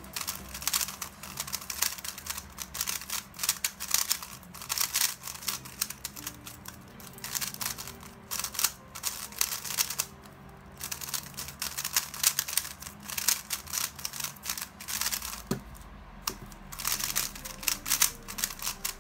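MoYu Weilong WRM 2021 magnetic 3x3 speedcube being turned fast by hand: rapid plastic clacking of its layers, in flurries with brief pauses about ten seconds in and again near sixteen seconds.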